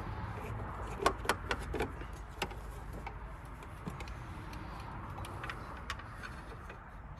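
Light metallic clicks, clinks and knocks of a universal battery clamp and bracket being handled and tried into place beside a car battery, a flurry of them between about one and two and a half seconds in, over a steady low rumble.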